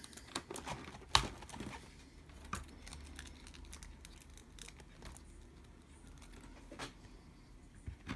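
Handling noise of a stainless steel rod being threaded through an RC car's plastic chassis by hand: scattered small clicks and taps, with one sharper click about a second in.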